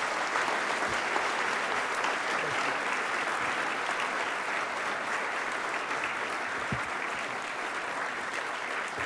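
Large audience applauding steadily, many people clapping at once, easing off slightly toward the end.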